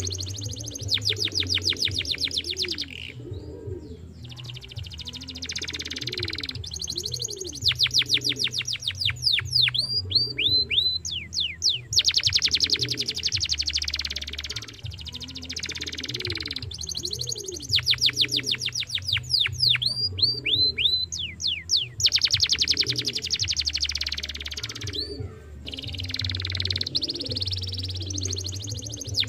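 Domestic canary singing a long song of rapid rolling trills, each a fast run of repeated notes, broken by series of quick descending whistles and short pauses between phrases.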